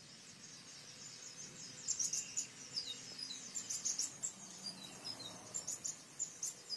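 Small birds chirping and twittering, many quick high-pitched notes, some sliding down in pitch, over faint background hiss.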